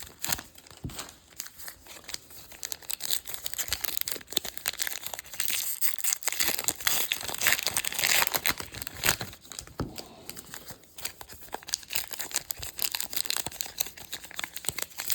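A pack of baseball trading cards being torn open and its wrapper crinkled, in an irregular run of crackles and rustles.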